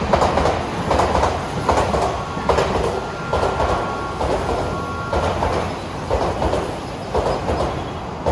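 Odakyu 30000-series EXE α Romancecar running through the station under hard emergency braking, its wheels clattering in a regular beat about once a second that spaces out slightly as it slows. A faint thin squeal is heard in the middle.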